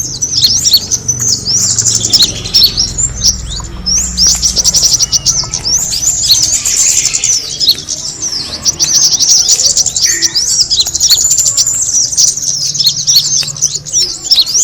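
Small songbirds chirping and trilling in a rapid, unbroken stream of high-pitched notes, played as a bird-lure call.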